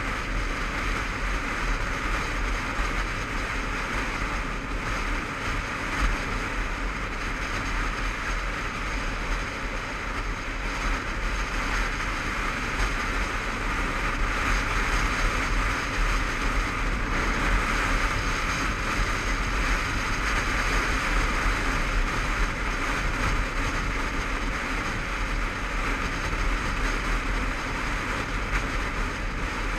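Honda CBF500 parallel-twin running steadily at road speed, heard through a helmet-mounted camera, mixed with a constant rush of wind over the helmet.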